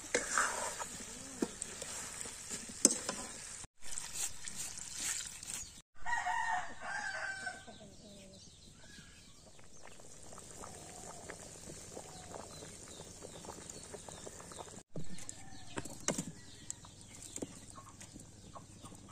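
A rooster crows once, about six seconds in. Before it, a metal ladle clinks and scrapes in a steel wok, and near the end there are a few wooden knocks as firewood is pushed into a clay stove.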